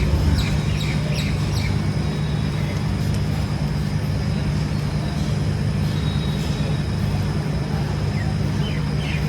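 Birds chirping in short, quick downward-sweeping calls, a cluster in the first couple of seconds and more near the end, over a steady low hum.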